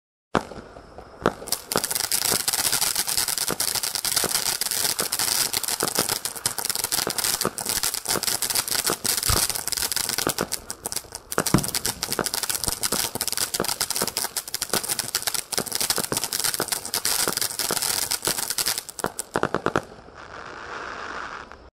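Scorpion 'Mystic Fountain' ground fountain firework burning, with dense crackling as it sprays sparks. It starts suddenly, thickens into continuous crackle within a couple of seconds, and near the end dies down to a quieter hiss.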